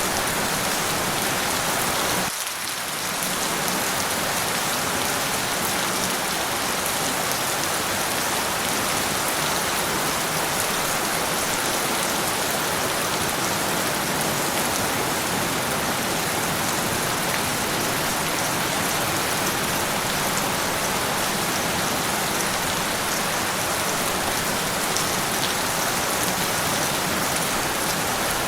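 Steady heavy rain falling, a dense even hiss of drops with no thunder; it dips briefly a little over two seconds in.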